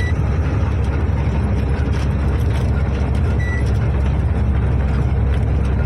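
Truck's diesel engine running steadily under way with road noise, heard from inside the cab.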